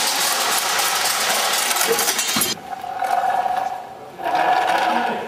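Compressed air hissing from a student-built compressed-air motor on a small test car: one long loud blast for about two and a half seconds, then two shorter runs of about a second each with a steady whine as the air motor spins.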